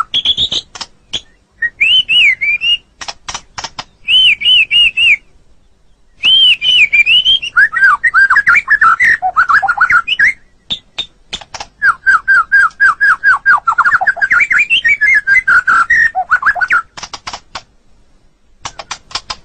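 White-rumped shama (murai batu) singing: loud phrases of rapidly repeated whistled notes that swoop up and down, broken up by sharp clicking notes, with two short pauses between phrases.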